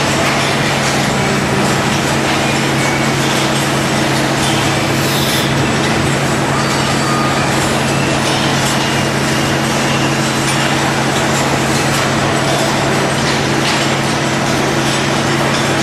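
Steady machinery noise on a cathode ray tube production floor: a constant hum with an even hiss over it, and a few faint clicks.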